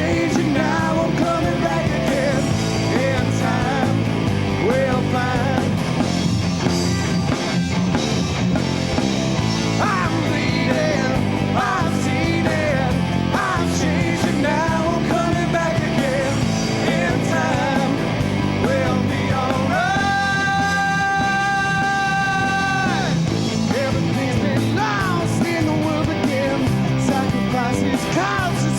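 A rock band playing live, with electric guitars, bass and drums, and a sung or yelled vocal line through much of the stretch. About twenty seconds in, a single note is held steady for roughly three seconds.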